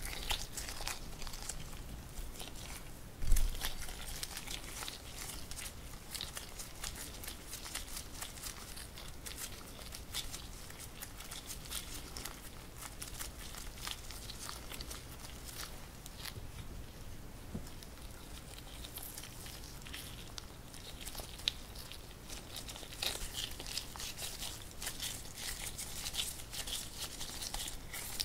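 Gloved hands kneading sticky mugwort glutinous rice dough in a glass bowl: an irregular run of small crackling and tearing sounds as the dough is pulled and squeezed, with a single thump about three seconds in.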